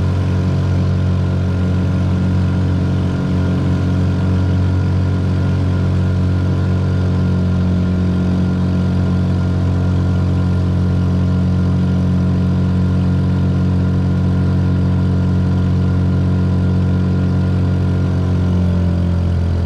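Honda Supra 125 single-cylinder four-stroke motorcycle engine powering a small boat, held at high revs under full throttle, giving a loud, steady drone.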